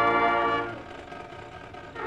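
High school marching band's brass holding a chord that cuts off about half a second in, then a short pause before the band comes back in at the very end.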